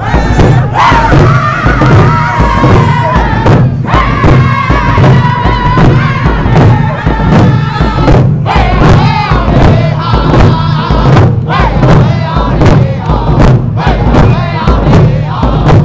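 A crowd singing a Native drum song together, with held, gliding voices over a steady hand-drum beat.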